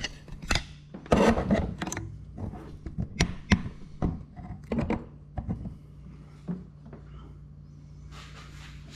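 Handling and movement noise: a run of knocks, clicks and rubbing that thins out after about five seconds, over a low steady hum.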